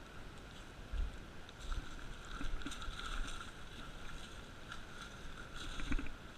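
Steady rush of flowing creek water, with several low dull thumps of the camera being handled.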